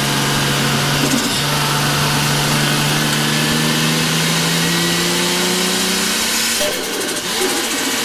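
Toyota JZX drift car's straight-six heard from inside the cabin, pulling under load with its note climbing slowly after a brief break about a second in. Near the end the note falls and breaks up as the throttle comes off going into a turn.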